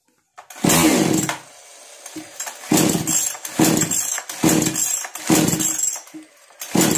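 Two-stroke engine of a Kisan Kraft KK-CS6522 chainsaw being cranked with its recoil starter. A long first pull is followed by a string of shorter pulls a little under a second apart, and the engine does not run on between them, as from a saw with a starting problem.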